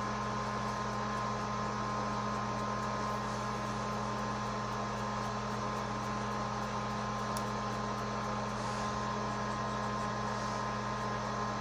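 Steady background hum: a low drone with a thin higher tone over an even hiss, unchanging throughout, from a fan, appliance or electrical hum in a small room.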